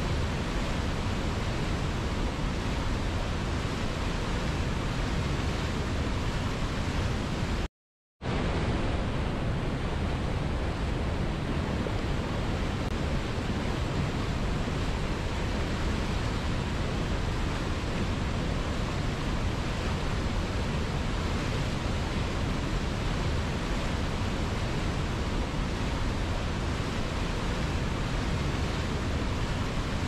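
Steady rushing roar of white water: a mountain river tumbling over boulders below a waterfall. The sound cuts out completely for about half a second some eight seconds in, then carries on unchanged.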